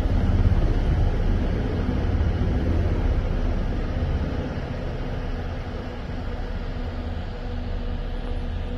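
Large twin-turbine helicopter taking off and climbing away: steady low rotor noise with a faint high whine, growing fainter over the first six seconds or so.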